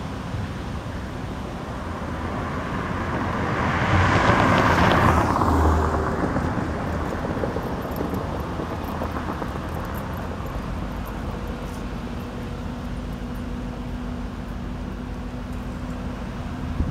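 Outdoor traffic noise, steady, with a vehicle passing that swells to its loudest about four to six seconds in and then fades.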